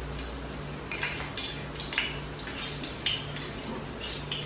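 Potato donuts deep-frying in hot oil on a low flame: a steady sizzle with irregular crackles and pops.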